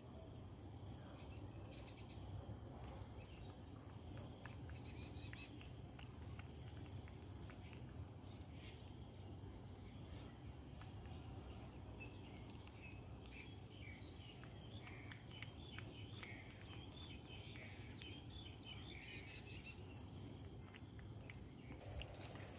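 Faint, high insect trill repeating in even phrases about a second and a half long with short breaks between them, with scattered faint small clicks.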